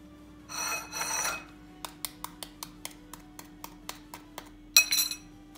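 A small knife tapping and cracking quail eggshells over a drinking glass: a quick run of light clicks, about four a second, after a brief rustle. Near the end comes a louder clink with a short ring.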